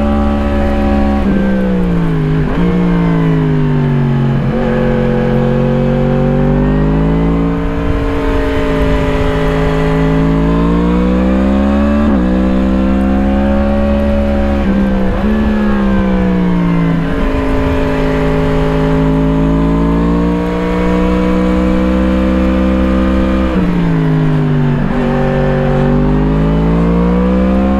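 2017 Yamaha MT-10's crossplane inline-four engine through an Akrapovič slip-on exhaust, heard from on board the bike as it rides. The engine note falls and climbs again and again, with sudden steps in pitch at gear changes.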